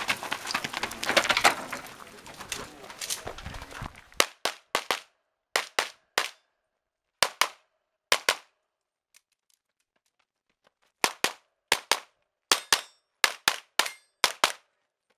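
Handgun shots at an IPSC stage, fired mostly in quick pairs (double taps) in several strings with pauses between, about twenty shots in all from about four seconds in. Before them, a few seconds of loud rustling and scuffling noise.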